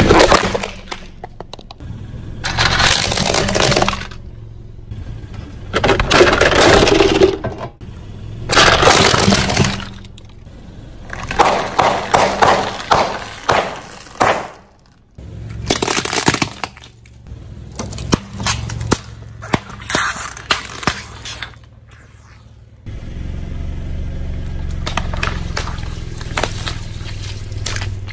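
Objects being crushed under a car's tyres: several separate bursts of crunching, cracking and breaking, each lasting a second or two. About three-quarters of the way through, a car's engine running steadily takes over, with a few sharp crackles over it.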